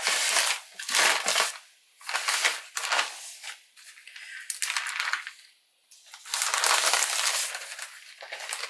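Plastic poly mailer bag crinkling and rustling in irregular bursts as a box is pushed into it and the bag is smoothed and folded over, with short pauses between handlings.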